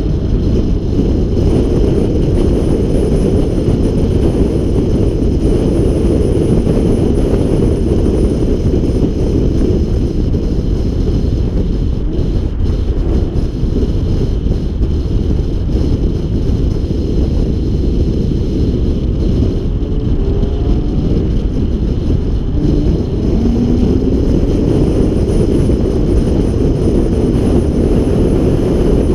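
A car driven at speed around a racetrack, heard from on board: a loud, steady rush of wind buffeting the microphone mixed with engine and tyre noise, with a few faint rising engine notes in the second half.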